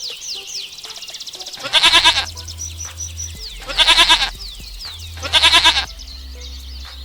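A goat bleating three times, each bleat about half a second long with a quavering pitch, evenly spaced. Small birds chirp in quick downward notes throughout.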